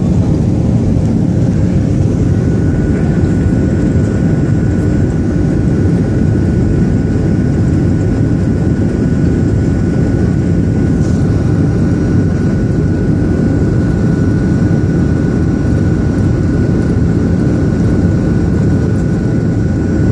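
Jet airliner cabin noise in the climb after takeoff: a steady loud roar of engines and airflow, with a faint steady whine joining about two seconds in.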